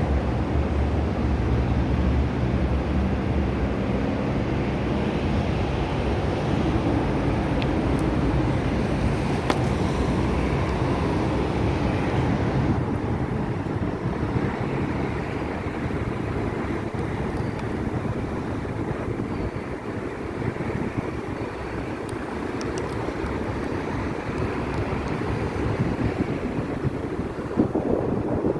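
Steady outdoor rushing noise with wind on the microphone. A low hum fades out over the first few seconds.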